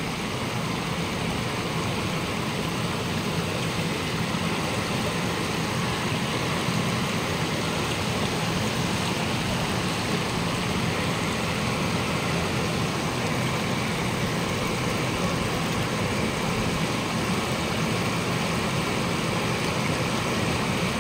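Steady rushing and hissing of water at a steaming hot-spring vent at the foot of a rock face, unchanging throughout.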